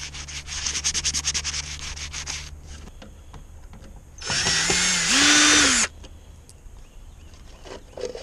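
Quick back-and-forth scuffing strokes of a scouring pad on a painted aluminium boat deck. About four seconds in, a Ryobi cordless drill runs for about a second and a half, its whine stepping up in pitch partway through.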